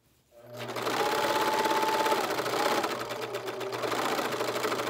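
Sewing machine stitching a seam. It starts up just after a brief stop at the beginning and then runs steadily with rapid, even needle strokes.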